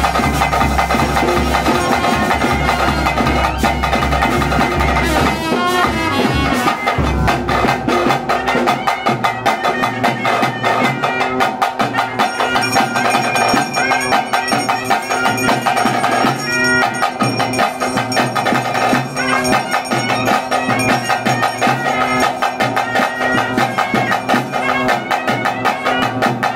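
Traditional ritual music: a wind instrument playing held and winding melodic lines over fast, dense drumming. A deep bass beat underneath drops out about five seconds in.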